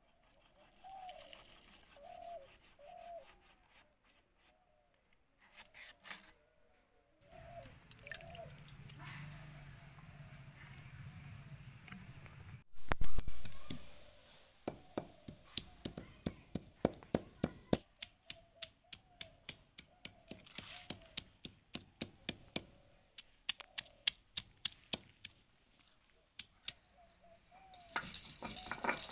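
Stone roller worked back and forth on a flat grinding stone (sil-nora), knocking and scraping at about two to three strokes a second, after one heavy thump about halfway through. Doves coo softly in the background, mostly in the first few seconds.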